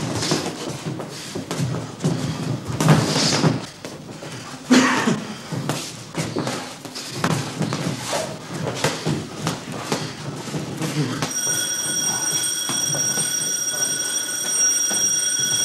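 Boxing gloves thudding on headguards and bodies during sparring, with many short knocks and scuffs. About two-thirds of the way through, an electric bell starts ringing steadily, marking the end of the round.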